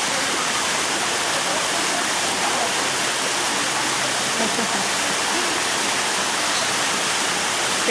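Steady rushing noise with no change in level, with faint voices underneath.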